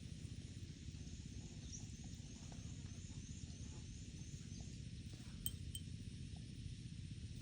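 Quiet outdoor ambience with a steady low rumble. A short high chirp repeats about three times a second through the first four to five seconds, and two faint clinks come in quick succession about five and a half seconds in.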